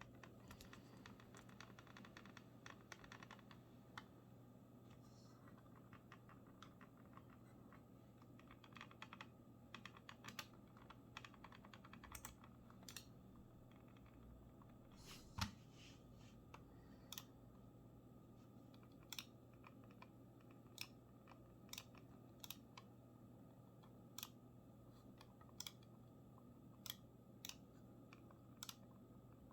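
Small creaks and clicks from a Razer Viper Ultimate wireless mouse's shell being pressed, a creaking defect bad enough to send it back for repair. A dense run of faint creaks in the first half, one sharper click near the middle, then single clicks about every second or so.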